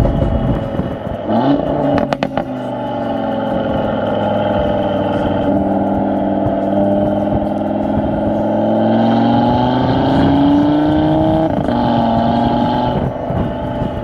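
Audi RS3 Stage 2's turbocharged 2.5-litre five-cylinder exhaust: a few sharp pops and bangs about two seconds in, then the engine pulls up steadily in pitch under hard acceleration, with gear changes dropping the pitch near the end.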